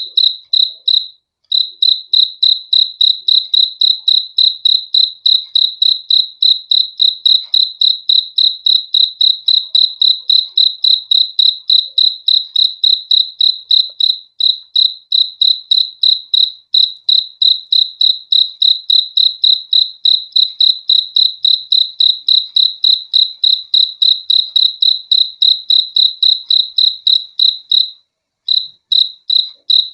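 A cricket chirping, a high-pitched pulsing song of about three chirps a second, with brief pauses about a second in and near the end.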